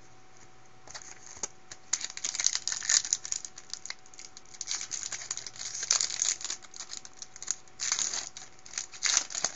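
Foil wrapper of a trading-card pack being opened and crinkled by hand: irregular crackling starting about a second in, thickest in the middle and again near the end.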